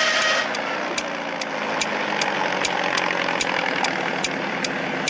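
Engine idling steadily, with a sharp tick repeating evenly about two and a half times a second.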